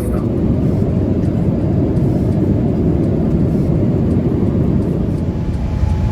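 Jet airliner noise: a steady, loud, low rumble.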